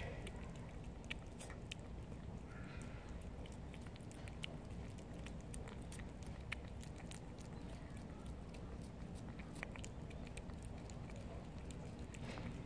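Calico cat chewing and lapping wet cat food, with small irregular wet clicks and smacks of its mouth.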